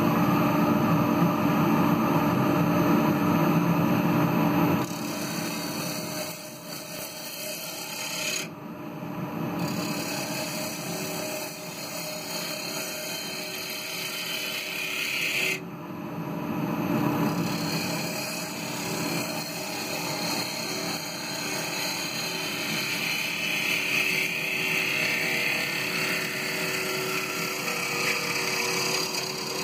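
Wood lathe running while a gouge cuts the outside of a spinning ash bowl blank. The cut is loudest for the first five seconds, then quieter.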